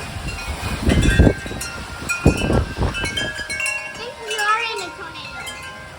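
Wind chimes ringing hard and clanging in storm-force derecho winds, with two heavy gusts buffeting through in the first three seconds.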